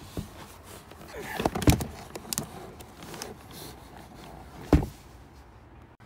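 Clicks and knocks from the removed door trim panel of a 1997 Lexus ES 300 being handled while the door-light wiring connector is unplugged. Two sharp knocks stand out, about a second and a half in and near the end, with a few lighter clicks between them.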